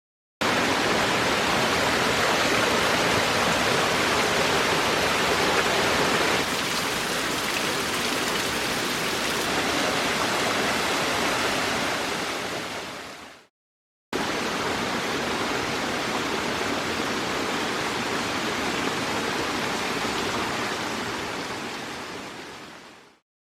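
Steady, loud rush of flowing water, in two separate stretches that each fade out, with a brief gap of silence between them about halfway through.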